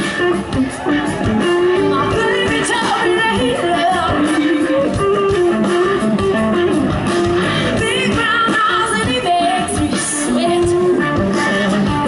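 Live band playing with a female lead singer over electric guitar, bass and drums.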